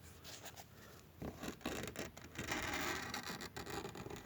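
Close rubbing and scraping noises with scattered small clicks, growing about a second in and loudest between about two and a half and three seconds in.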